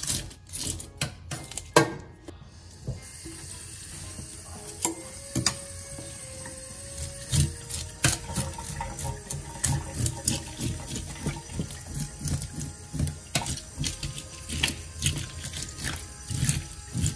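Metal fish scaler scraping the scales off a mangrove jack in a stainless steel sink, in many quick, irregular strokes. From about three seconds in, a tap runs into the sink underneath the scraping.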